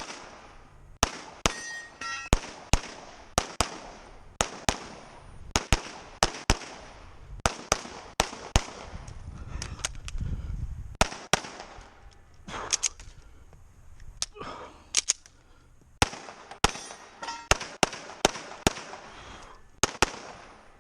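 Gunfire from a shooter running a timed course of fire: many sharp shots at an uneven pace, often as quick pairs. There is a short pause about ten seconds in, then more pairs until near the end.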